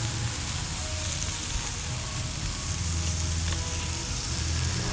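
Beef and bacon sizzling steadily on a hot domed tabletop barbecue grill.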